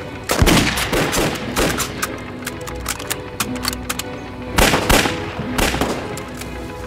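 Gunfire in a battle scene: rifle shots and rapid strings of shots crack out again and again, loudest about half a second in and again around five seconds, over a dramatic film score.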